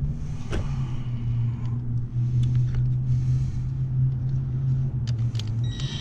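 A steady low hum with a few light clicks of tools being handled. Near the end a Ridgid cordless drill starts up with a rising whine as it drives a bolt on the blower motor's mount.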